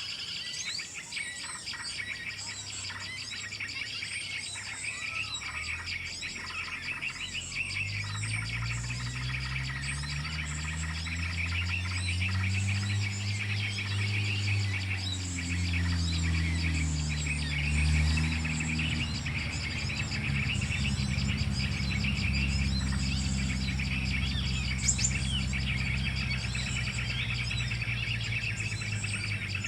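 Small birds chirping busily with rapid, high calls throughout. A low droning hum, like a motor, comes in about a quarter of the way through, rises and falls in pitch, then continues steadily underneath.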